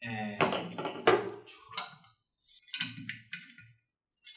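Knocks and clatter of a swivel chair's five-star base and loose assembly parts being set down and handled on a wooden desk. There is a close run of knocks in the first second and a half, another group about three seconds in, and a short one near the end.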